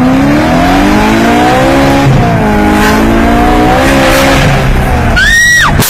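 Car engine revving hard as the car accelerates from a standstill, heard from inside the cabin; its pitch climbs steeply, drops at a gear change about two seconds in, then climbs again. Near the end a short high squeal rises and falls.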